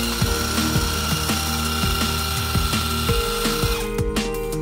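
Battery-powered cordless pressure washer running, a steady hiss of the water jet on tiles with a steady whine from its motor and pump. It cuts off a little before the end. Background music with a beat plays underneath.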